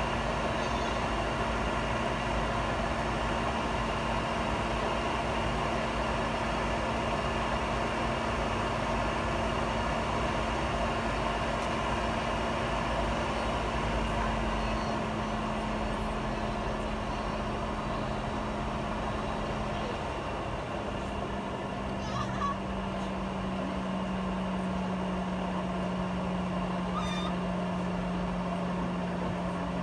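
Steady cabin noise of a Boeing 717-200 airliner on the ground: the hum of its engines with an air hiss behind it. The engine tone steps down a little about two-thirds of the way through.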